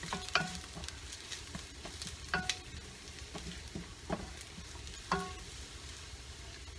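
Sliced ginger sizzling in hot cooking oil in a pan, being sautéed until it browns, with a steady hiss. A stirring utensil taps and scrapes the pan now and then, a few of the taps ringing briefly.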